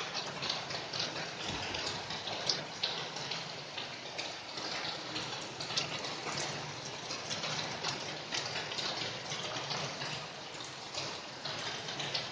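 Rain falling steadily, with many individual drops ticking sharply on a nearby surface.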